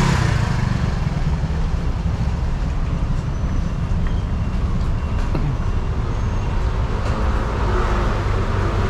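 Steady city street traffic noise, a low rumble of scooters and cars, with a scooter's engine passing close by and fading right at the start.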